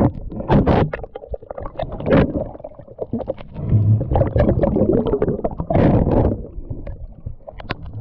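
Underwater sound picked up by a diving camera: muffled rushing water and bubbling with a low rumble, broken by many irregular clicks and knocks as the speared octopus is handled.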